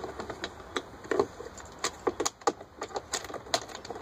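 Irregular metallic clicks and rattles from a hand tool working the 10 mm bolts that hold an inverter generator's top carrying handle.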